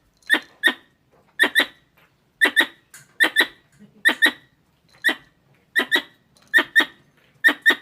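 Squirrel calling with short, sharp chips, mostly in quick pairs, repeating about once a second in a steady alarm-like series.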